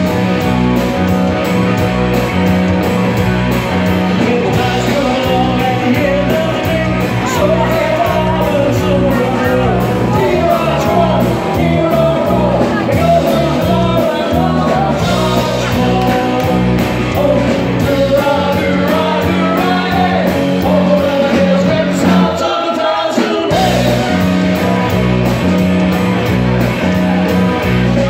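Live rock band playing loud: shouted lead vocals over electric guitars, bass guitar and a drum kit with steady cymbal and snare beats. The bass and drums drop out for about a second a little after twenty seconds in, then the full band comes back in.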